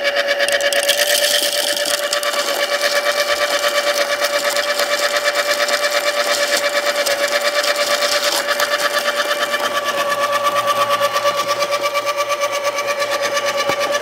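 Electric burr coffee grinder running continuously, its motor giving a steady whine with a rapid, even chattering pulse. A second, higher whine joins about ten seconds in.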